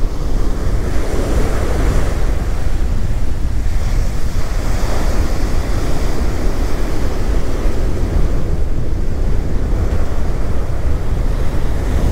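Ocean surf breaking and washing up the beach in a continuous rush, with strong wind buffeting the microphone in a heavy low rumble.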